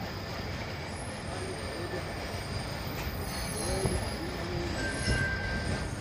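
Beijing tram rolling slowly along its street track, heard from aboard as a steady low rumble. A high, steady wheel squeal sets in about five seconds in.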